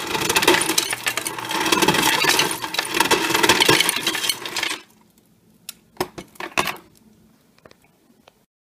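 1998 Kenmore side-by-side refrigerator's door ice dispenser delivering ice: a dense clattering rattle of ice for about five seconds that cuts off suddenly, then a few scattered clinks as the last pieces drop.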